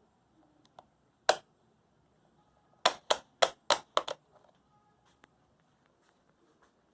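Six sharp clicks: one alone, then five in quick succession about a quarter second apart.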